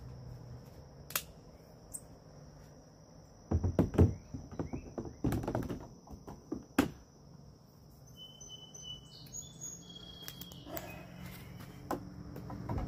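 A few hollow thumps and knocks, most of them bunched around four and five seconds in, over a steady high insect trill that stops about eight seconds in. Short bird chirps follow.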